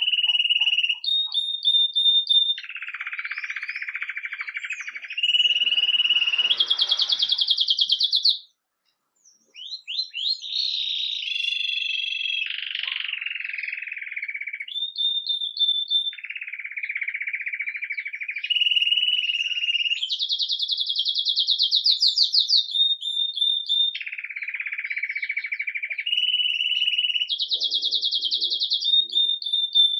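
Red mosaic agate Belgian canary singing its 'campainha' (bell) song. Long, fast trills are each held on one pitch for one to three seconds, switching between low, middle and high notes, with a brief break about nine seconds in.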